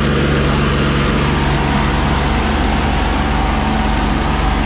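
Tractor diesel engines running hard under load in a tug-of-war pull, a loud, steady low rumble.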